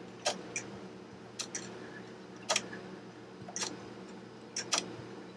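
A 3D-printed plastic twin-pivot grasshopper escapement clock ticking, with a sharp click about once a second as the escapement lets its 120-tooth escape wheel advance. Near the end one tick comes as two quick clicks.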